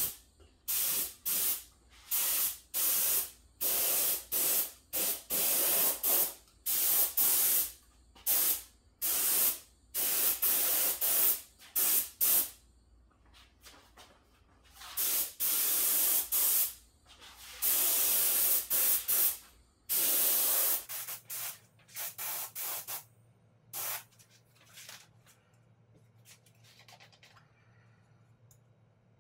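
Touch-up spray gun spraying paint in a run of hissing bursts as the trigger is pulled and let go, most of them short and a few lasting a couple of seconds. The bursts stop about three-quarters of the way through, leaving only faint handling sounds. A low hum runs underneath until about two-thirds of the way through.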